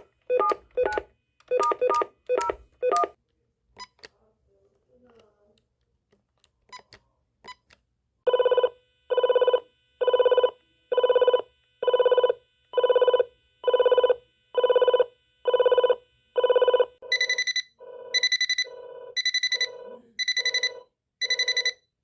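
Samsung SHT-101C video door phone sounding its electronic tones. A quick run of short keypad beeps, then a few faint clicks. Then a repeating ring tone pulses about once a second, switching to a brighter, higher-pitched ring pattern a little past halfway.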